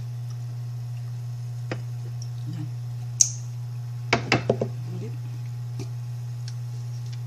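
Clicks and knocks from a bottle of spiced vinegar being handled and set back down on the counter: one sharp click about three seconds in, then a quick run of about five knocks a second later. A steady low hum runs underneath.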